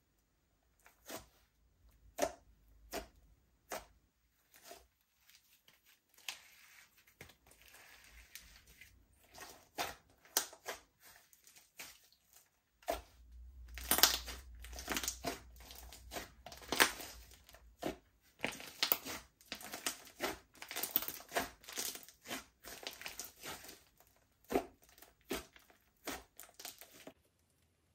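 Slime being kneaded and pressed by hand, giving many short, irregular crackling pops, sparse at first and much denser from about halfway.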